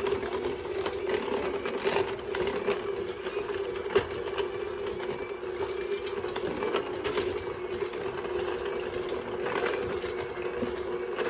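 Electric mixer running steadily, beating butter with light brown sugar and confectioner's sugar until light and fluffy, with occasional short clicks.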